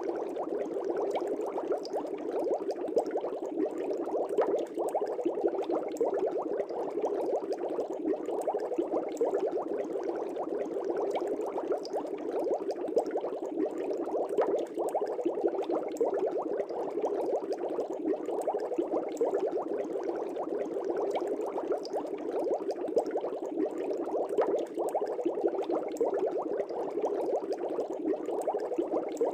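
Aquarium air bubbles rising and breaking at the water surface in a steady, dense bubbling.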